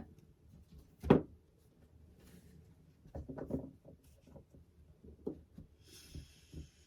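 Tarot cards handled on a table: one sharp tap about a second in, then a few softer taps and knocks, and a brief rustle of cards sliding near the end.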